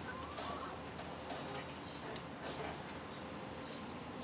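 Hens clucking quietly in short, scattered sounds.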